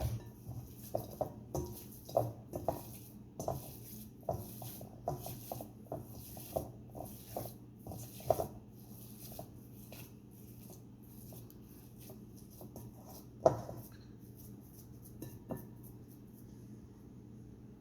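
Ground venison and seasonings being mixed in a bowl: a run of quick, irregular squishes and knocks, several a second for about ten seconds, then slowing to a few scattered ones with one sharper knock. A steady low hum runs underneath.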